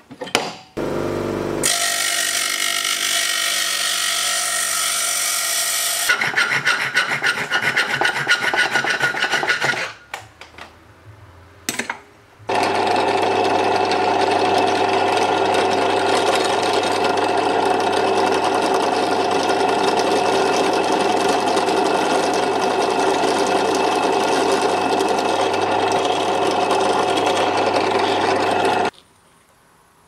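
A drill press motor running steadily for about sixteen seconds while a small twist bit drills through a piece of euro coin (Nordic gold), cutting off abruptly near the end. Before it, about eight seconds of loud harsh rasping that turns into rapid repeated strokes, then a short pause.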